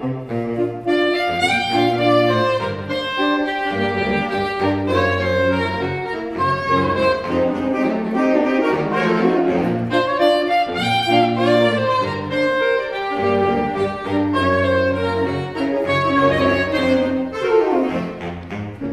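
A saxophone sextet playing a jazz arrangement: a low bass line in held phrases that recur about every four seconds, under busy chords and runs from the higher saxophones.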